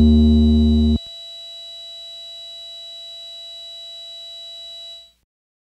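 The closing synthesizer notes of an electronic hip-hop track: a loud held chord with deep bass cuts off about a second in, leaving a faint steady high electronic tone that fades out around five seconds in.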